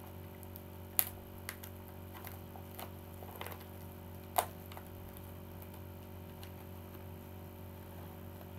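Cardboard and plastic packaging of a mailed parcel being handled and pulled open: a handful of light clicks and crinkles in the first four and a half seconds, the sharpest about a second in and near four and a half seconds, then only a steady low hum.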